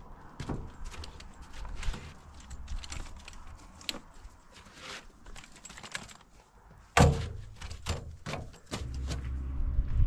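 Folding camp chair being carried out and opened on a metal checker-plate deck: scattered clicks, rustles and knocks of its metal frame, with one sharp clack about seven seconds in. A low rumble comes in near the end.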